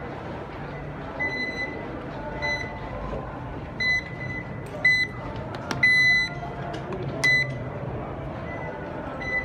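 Metro fare-card readers beeping as passengers tap their cards on the way through: six short, high single-pitched beeps at uneven intervals, the one about six seconds in held longer and loudest, over the steady hubbub of the crowded passage.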